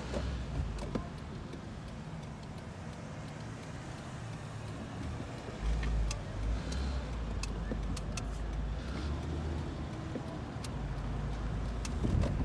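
A car driving slowly, its engine and road noise a steady low rumble heard from inside the cabin, with a few scattered light clicks. Near the end it gets louder and bumpier as the tyres cross the railroad tracks.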